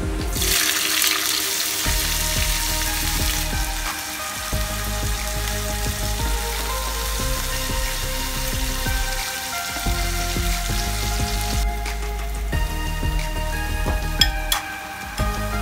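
Sliced bell peppers and onion dropped into hot oil in a wok, sizzling loudest in the first few seconds and then easing, stirred with a wooden spatula, with a few sharp knocks near the end. Background music plays under it.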